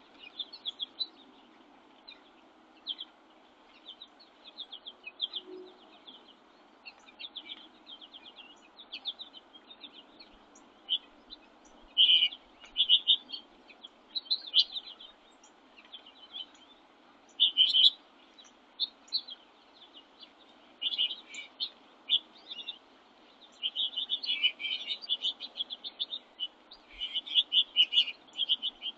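Small songbirds chirping and twittering in frequent quick runs of short, high notes, over a faint steady background hiss.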